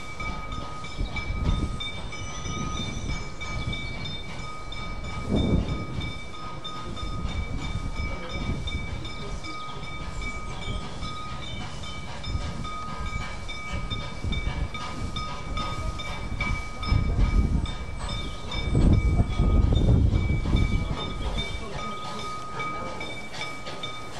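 Danish F class 0-6-0T steam tank locomotive working slowly along the line, a low rumble that swells and fades, loudest a few seconds before the end. A steady high-pitched tone sounds faintly behind it.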